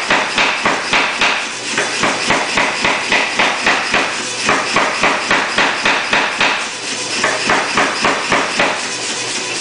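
Say-Mak SPH 50 self-contained power hammer with flat dies pounding a hot 9260 steel bar, drawing it out in a steady run of about three blows a second. The blows break off briefly twice, then stop near the end, leaving the hammer's motor humming.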